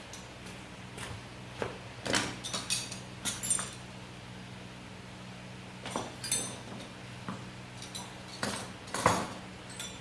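Scattered light metallic clicks and clinks, in loose clusters, of small parts or hand tools being handled, over a steady low hum.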